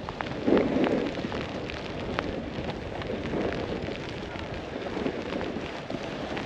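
Snowboard sliding and scraping over icy, rutted snow: a continuous rough rushing noise, louder about half a second in, with a few sharp clicks of the edges catching.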